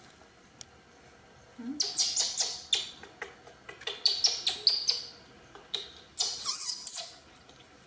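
Baby monkey making a quick run of short, high squeaks and chirps while it is bottle-fed, with a longer falling squeal near the end.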